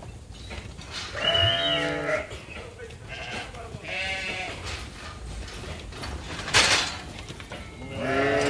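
Sheep bleating: several separate bleats, a loud one about a second in, a few shorter ones in the middle and another starting near the end. A short harsh noise burst about two-thirds of the way through is the loudest sound.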